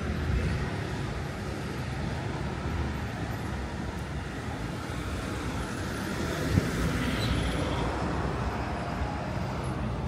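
Steady street traffic noise from cars passing on a nearby road, with a single short knock about six and a half seconds in.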